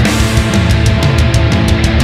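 Loud heavy metal music with fast, regular drum and cymbal hits over a heavy, steady bass.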